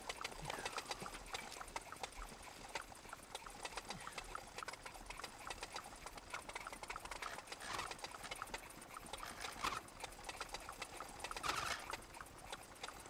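Small moped engine running with a rapid, uneven ticking.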